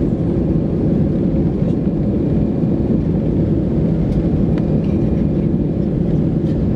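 Steady low rumble inside the cabin of an Airbus A319-112, from its CFM56 jet engines and the rushing air around the fuselage.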